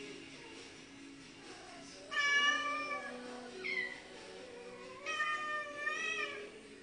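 Domestic cat giving long, drawn-out mating calls: two long calls of about a second or more each, with a short rising call between them. Quiet background music plays underneath.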